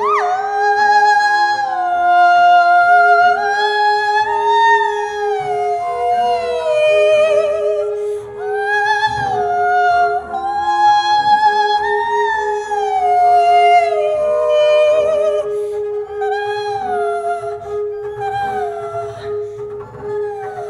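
A woman singing wordlessly, a slow gliding melody with vibrato, over a steady held double-bass note; the music grows softer near the end.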